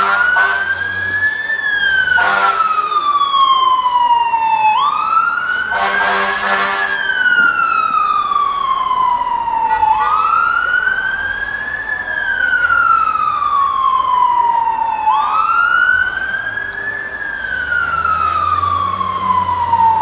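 Fire engine siren wailing, sweeping quickly up and then slowly back down about every five seconds, with short horn blasts near the start and around six seconds in.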